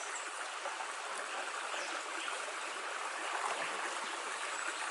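Creek water running steadily over rocks, a constant rushing sound.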